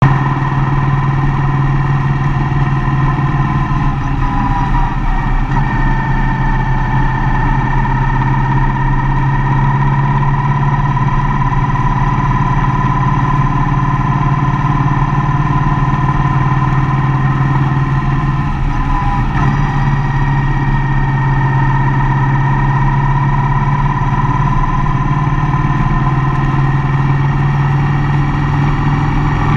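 Mercedes-Benz Vito van driving: a steady engine drone with road noise, and a whine that dips briefly in pitch about four seconds in and again near nineteen seconds.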